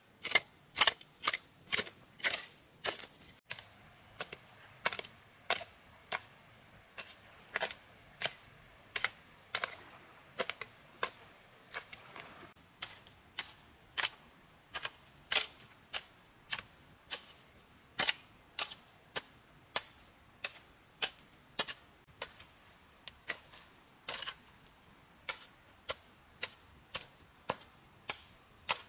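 Repeated sharp blows of a hand tool on wood, steady and even, about one and a half a second.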